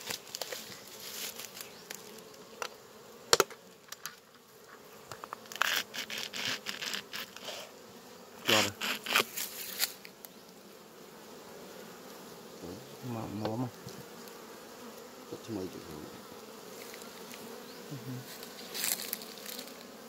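Honeybees buzzing steadily around and inside an opened wooden box hive. Sharp knocks and scraping clicks of the wooden lid being lifted off the frames break in: a single knock about three seconds in, then clusters of clicks a little later.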